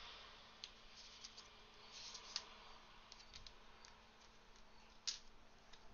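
Faint scattered light clicks and paper rustles as hands handle a leather traveler's notebook and flip through its paper insert, with a sharper click about five seconds in.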